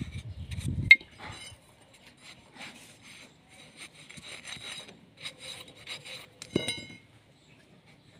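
Rasping scratches in dry sandy soil as a machete blade and a stick dig at a hole. There is a sharp click about a second in, and a louder knock with a brief metallic ring a little past the middle.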